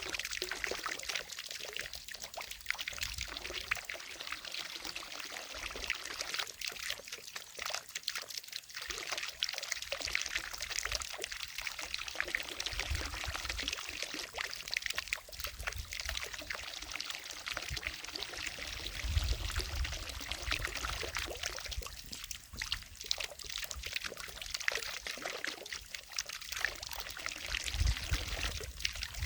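Water from a fountain falling and splashing steadily into a lake, a continuous pouring trickle, with a few brief low rumbles.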